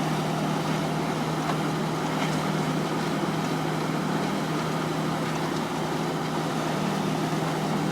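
2006 Rotochopper CP-118 horizontal grinder running steadily while grinding wood into colored mulch: an even machine drone with a constant low hum.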